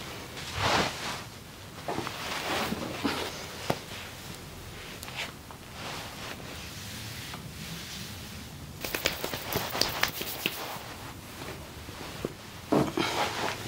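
Hands rubbing and tapping during a massage, making irregular rustling swishes and scattered sharp clicks, with a quick run of clicks about nine seconds in.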